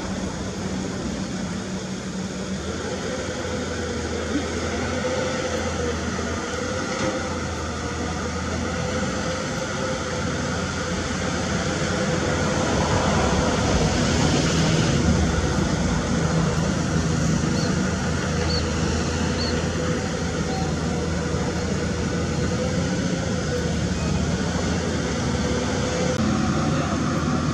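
Komatsu PC200 long-arm excavator's diesel engine and hydraulics running steadily with a steady hum, growing louder partway through as the boom and bucket dig mud from the canal.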